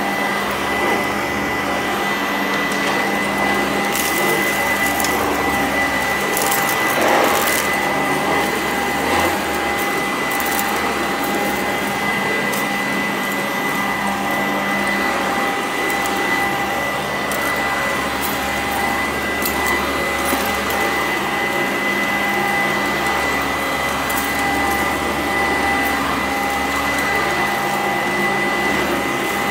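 Sanitaire SC899 upright vacuum running steadily with a high motor whine as it is pushed over carpet. Sharp crunching clicks come now and then, most of them in the first third, as grains of salt are sucked up.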